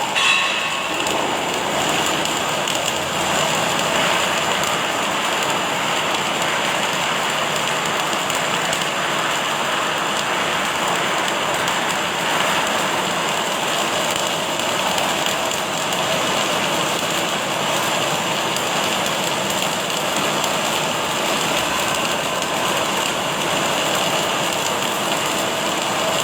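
Automatic welding machine's arc crackling and hissing steadily, without a break.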